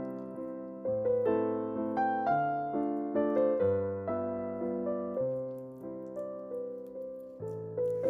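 Background piano music: a gentle melody of struck, fading notes over slow-changing bass notes.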